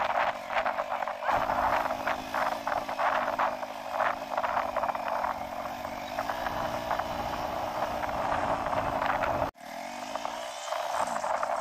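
Motorbike engine running steadily while riding, with wind buffeting the microphone in gusts; the sound drops out abruptly for a moment about nine and a half seconds in, after which the engine pitch wavers.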